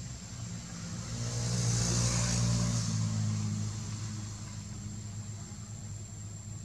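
A motor vehicle passing by. Its engine hum and tyre hiss swell to a peak about two seconds in, then fade away.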